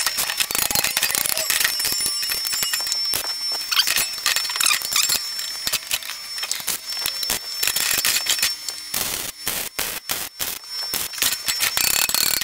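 MIG welder crackling as it welds the seams of a sheet-steel box. The arc runs for about nine seconds, then goes in short stop-start bursts.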